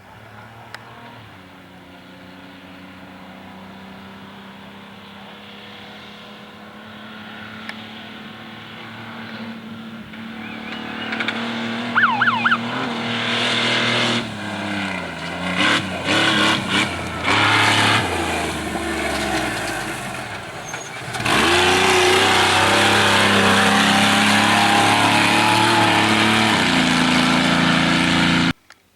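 Off-road race vehicle engine growing louder as it approaches, its pitch dropping and climbing again twice around the middle as it shifts or lifts off, then running loud and steady at high revs for the last several seconds before the sound cuts off suddenly.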